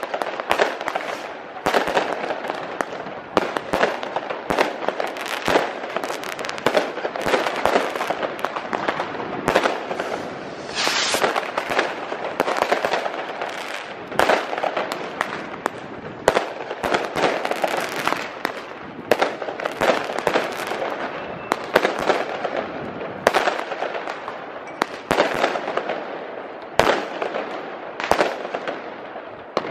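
Many fireworks going off at once: rockets bursting and firecrackers over a dense, continuous crackle, with frequent sharp bangs at irregular intervals and a brief hiss about eleven seconds in.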